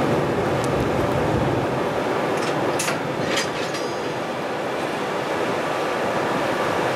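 Steady mechanical noise from a red JR electric locomotive standing at the head of a freight train, with two short high-pitched sounds about three seconds in.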